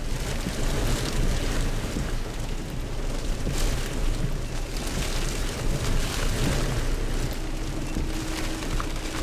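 Hurricane wind gusting and blowing rain, the gusts buffeting the microphone in a heavy low rumble that rises and falls unevenly.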